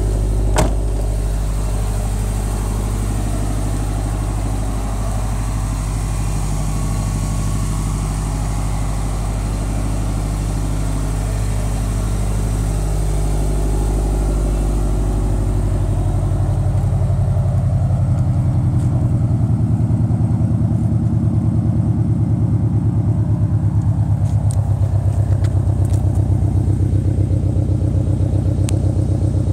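2013 Scion FR-S's flat-four engine idling while warming up after a cold start, through a Tomei equal-length header, catless front pipe and Invidia N1 exhaust. About halfway through, the sound gets a little louder, with a steady, even pulsing.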